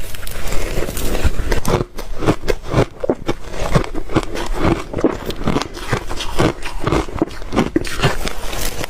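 Ice being bitten and chewed: a continuous run of sharp crunches and cracks.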